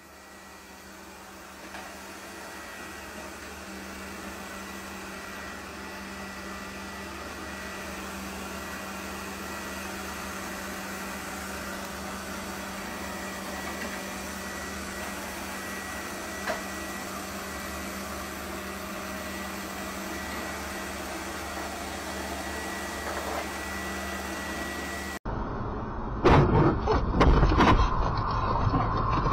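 Robot vacuum cleaner running: a steady whirring hum with a thin high whine, slowly growing louder. Near the end it cuts abruptly to much louder road noise from a car, with irregular knocks and a steady tone.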